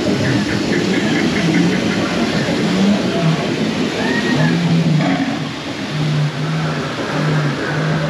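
Rushing, churning water and splashing waterfalls around a river-rapids raft ride. A low hum sounds underneath in short repeated notes from about four seconds in.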